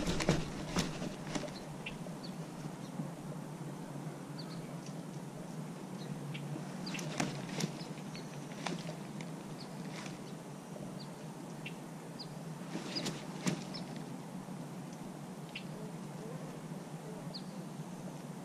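Quiet lakeside ambience: a steady low hiss with scattered soft clicks and taps from a baitcasting reel and rod as a jerkbait is twitched and paused, and a few short high chirps.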